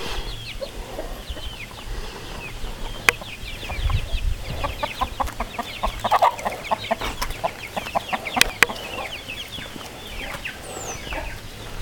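Chickens: a hen clucking in quick short notes while her chicks peep in rapid, falling high chirps, with a few sharp clicks between.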